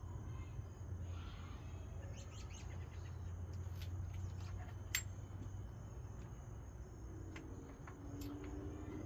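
Scattered faint metallic clicks and ticks, with a sharper click about five seconds in, from small hand work with an Allen wrench on a winch drum's set screw. Under them runs a steady low hum, with faint bird chirps in the background.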